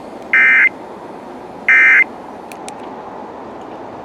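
Emergency Alert System SAME end-of-message data bursts: two short buzzy digital tone bursts about a second apart, the last two of the three that close an alert. Steady receiver hiss under them, with a few faint clicks afterwards.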